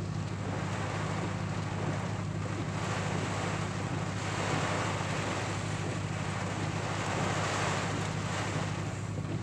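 Thunderstorm rain and wind on a pickup truck, heard from inside the cab: a steady rush of rain on the windshield and roof that swells and eases a few times with the gusts, over the low steady hum of the truck's idling engine.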